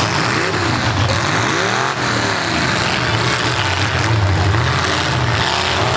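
Full-size V8 demolition derby car engines running and revving. The pitch rises and falls a few times in the first couple of seconds over a steady low engine drone.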